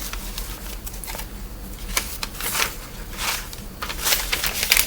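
Paper rustling and crinkling in short irregular bursts as sheets of handwritten notes are handled, busiest near the end.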